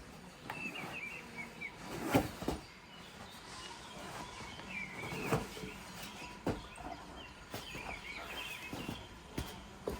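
Small birds chirping and twittering, with a handful of irregular knocks and thumps, the loudest about two seconds in.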